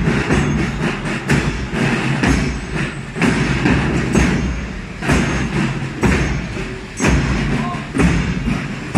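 Loud street-procession noise from a crowd with traffic among it, broken by heavy thuds about once a second.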